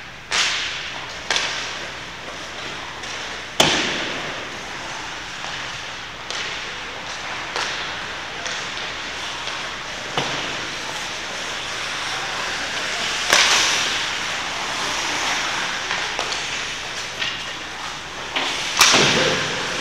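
Several sharp cracks, a few seconds apart, with swishing, scraping sounds over a constant background hiss.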